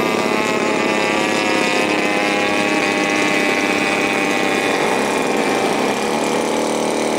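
Radio-controlled scale Cessna model airplane's engine and propeller running steadily in flight, a continuous drone whose pitch wavers slightly near the end.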